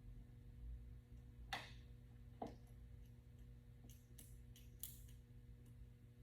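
Near silence: a steady low hum with a few faint clicks and ticks, the clearest about one and a half and two and a half seconds in and a short cluster around four to five seconds in.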